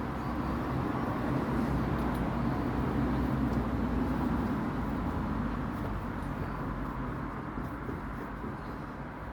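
Steady low rumble of a vehicle engine, such as passing traffic, swelling over the first few seconds and easing off toward the end.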